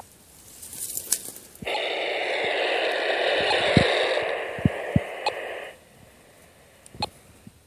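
Handheld radio-tracking receiver's speaker hissing with static for about four seconds. The static cuts in and cuts off abruptly, with a few short clicks, and dry grass rustles faintly around it.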